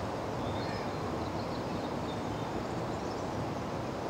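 Steady outdoor background noise with no clear single source, and a few faint high chirps in the first second and a half.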